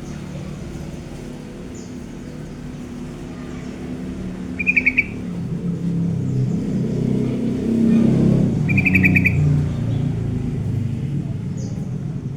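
A bird gives two short, rapid chirping trills about four seconds apart, over a low rumble that swells and fades in the middle.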